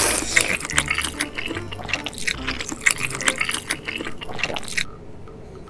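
Jjajangmyeon noodles being slurped into the mouth, then chewed with a rapid run of small mouth clicks and smacks, in close-up ASMR eating sound. The chewing stops about a second before the end.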